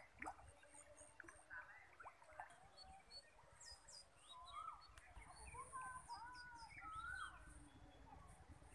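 Faint birdsong: several small birds chirping and whistling, with many short rising and falling calls and high chirps, over a faint low rumble.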